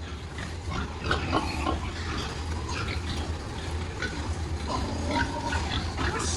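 Many pigs grunting and squealing together in a pig barn, with short, scattered calls over a steady low hum.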